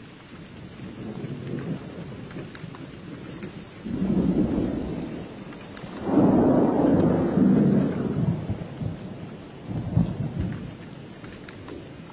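Thunder rumbling over steady rain: a few low rolls, the loudest about six seconds in and lasting around two seconds, with a shorter one near ten seconds.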